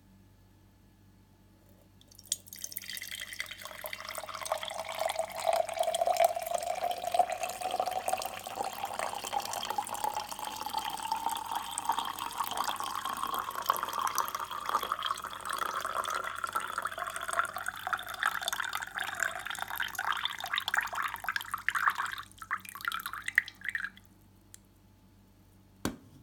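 Coffee poured in a thin stream into a glass Kilner jar mug. The pitch of the filling rises steadily as the jar fills. The pour breaks into trickles and drips about 22 seconds in and stops, followed by a light knock near the end.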